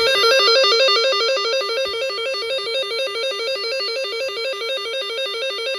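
Emergency Alert System attention signal received over the radio: a loud, harsh two-pitch warble that alternates rapidly and evenly and starts abruptly.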